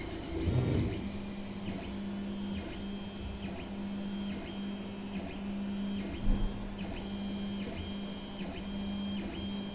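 Creality Ender 3 3D printer's stepper motors whining as it prints, a steady tone broken by short pauses about twice a second as the head makes one short move after another. One short knock about six seconds in.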